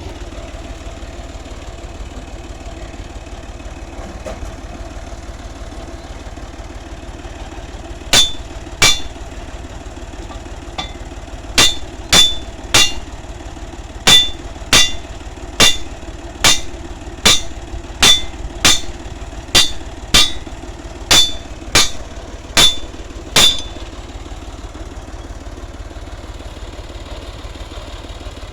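Ghazi 65 hp tractor engine idling steadily. Over it, from about eight seconds in until near the end, a series of about twenty sharp, ringing metallic clanks comes at roughly one and a half a second, like metal being hammered on metal.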